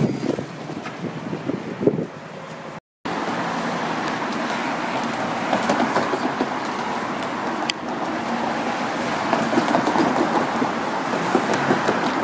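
Road traffic passing at a level crossing. The sound breaks off completely for a moment about three seconds in, then continues as a steady rolling rumble with occasional clicks.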